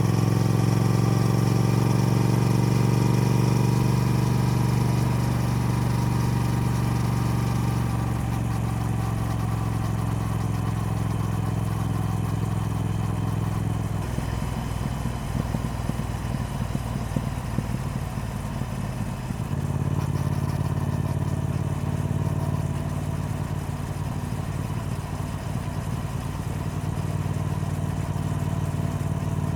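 Triumph Speed Twin's parallel-twin engine and exhaust running under way at a steady pitch. About halfway through the note thins and roughens as the throttle eases, then it picks back up at a new steady pitch a few seconds later.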